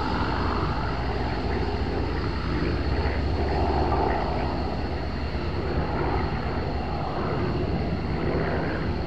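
Piston engine of a single-engine World War II warbird droning steadily as the propeller plane banks and turns in the air, over a steady low rumble.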